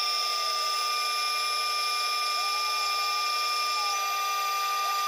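CNC lathe spindle turning a rifle barrel blank while a boring bar cuts the chamber end, with a steady whine of several high tones.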